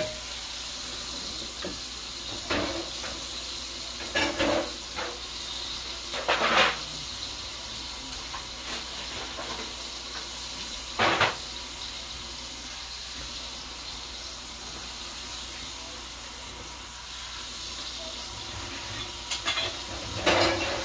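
Breaded chicken pieces shallow-frying in oil in a skillet, a steady sizzle. A few short clatters of tongs and kitchenware break in, a cluster of them near the end.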